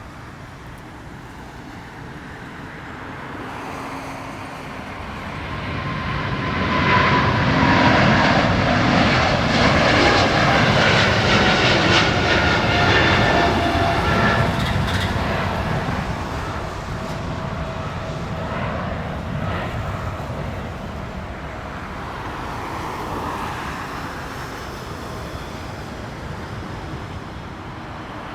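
Jet airliner taking off at full thrust. The engine roar swells a few seconds in and peaks as the aircraft passes, with a whine that falls in pitch, then fades slowly as it climbs away.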